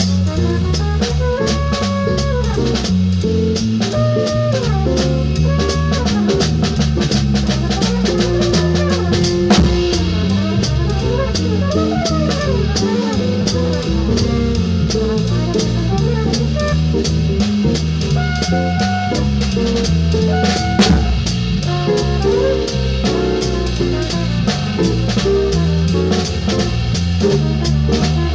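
Small jazz combo of flugelhorn, guitar, bass and drums playing at a steady swing, with held melody notes over a busy bass line and constant cymbal and rimshot strikes from the drum kit.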